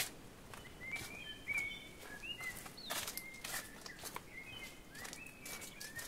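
Footsteps on a trail at a steady walking pace, with a small bird singing short whistled notes that slide up and down throughout.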